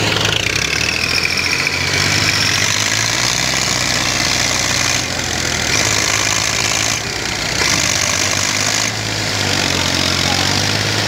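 Massey Ferguson 240 tractor's three-cylinder diesel engine running steadily under heavy load as it pulls on a chain hitched to another tractor, its rear wheels dug into the soil. The sound dips briefly a few times.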